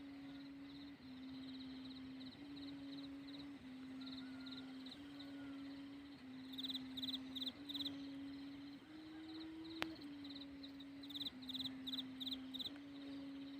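Thai kite hummer (sanu) droning in the wind: a steady low wailing tone that steps up and down in pitch every second or so. Rhythmic high chirping runs alongside, and there is a single sharp click about ten seconds in.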